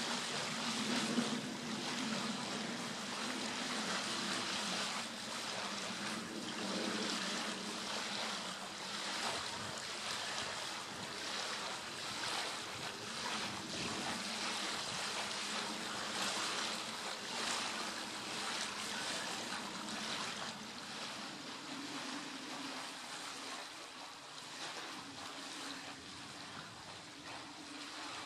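Steady rushing outdoor noise with a faint low drone underneath, getting slightly quieter near the end.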